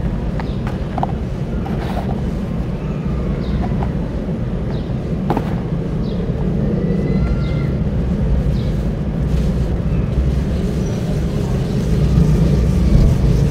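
Wet sand and soft sand-coated lumps crumbling and squelching under a hand in a basin of foamy water, with loose sand pouring back in. A steady low outdoor rumble is the loudest thing throughout, and a few short high chirps come and go.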